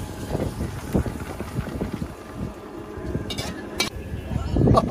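Wind buffeting the microphone, a low uneven rumble that swells louder near the end, with two sharp clinks a little past the middle.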